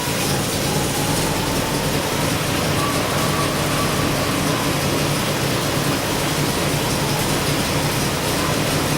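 GAZ Volga's four-cylinder carburetted engine, fitted with a K151 carburettor, idling steadily.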